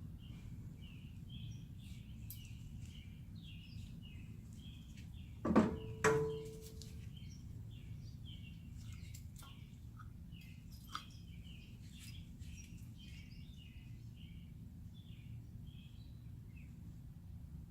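Two sharp metal clanks about five and a half and six seconds in, the second ringing briefly, as a brake part is handled and fitted back on; small birds chirp steadily in the background over a low rumble.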